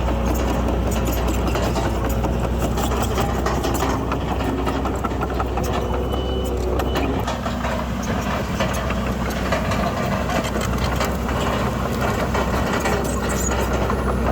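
Heavy diesel earthmoving machinery running steadily, with scattered metallic clanks and rattles; the engine note changes slightly about halfway through.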